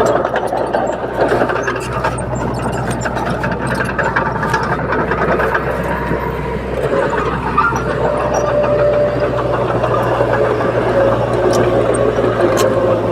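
Crawler bulldozer's diesel engine running steadily at a working load, with a deep constant hum. A higher steady whine joins about eight seconds in.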